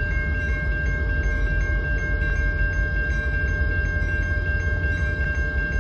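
Level-crossing warning bell ringing steadily at about two strokes a second, over a low rumble from the approaching CN train led by SD60 locomotives.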